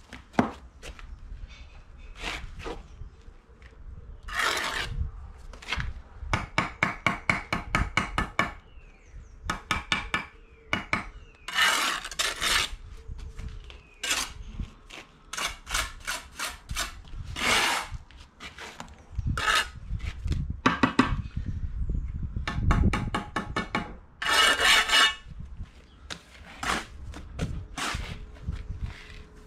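Steel brick trowel scraping mortar along the top of a brick course, with quick runs of taps and clinks of the trowel against mortar and bricks.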